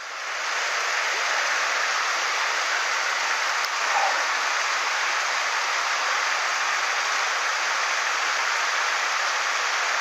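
Mountain stream water rushing steadily over a shallow, rocky riffle.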